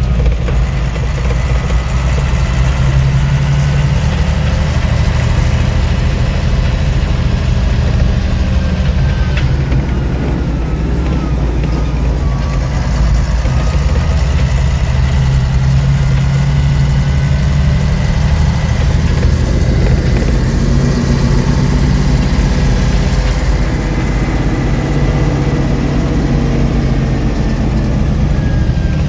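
Kato Mitsubishi mobile crane's diesel engine running as the crane drives along a street, heard from inside the cab as a steady low engine drone. Its pitch rises a little about two-thirds of the way in, then settles back.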